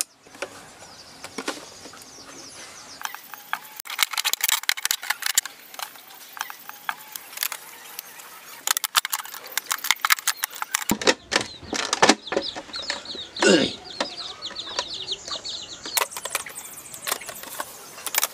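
Thin plastic bottle being handled, crackling and clicking under the hands. In the second half a chicken clucks in the background.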